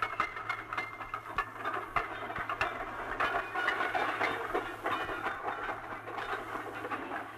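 Wagons of a slow steam-hauled coal train rolling past, wheels clicking over rail joints amid irregular rattling and clanking.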